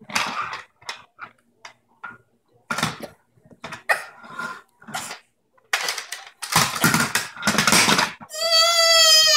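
Two toddlers' short cries and babble mixed with the clatter of a plastic toy tractor on a hard floor, ending in one long high-pitched squeal that drops in pitch near the end.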